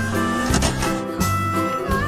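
Background music for a cartoon: a steady run of changing notes over a low, steady bass part.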